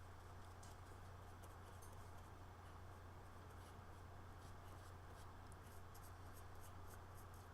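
Faint scratchy strokes of a paintbrush laying white paint on the edges of MDF parts, over a steady low hum.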